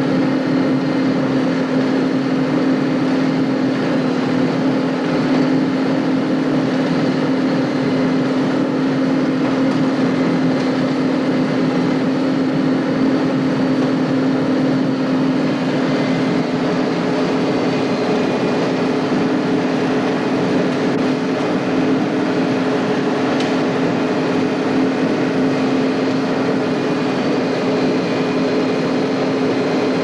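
John Deere 8820 combine running steadily under load while harvesting soybeans, a constant mechanical drone with a strong low hum. About halfway through, a second, higher steady tone joins it.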